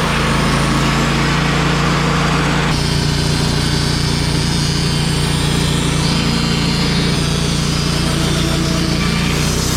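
Wood-Mizer portable band sawmill running steadily under load, its engine droning beneath the hiss of the band blade cutting through a black walnut log; the cutting noise shifts a little about three seconds in.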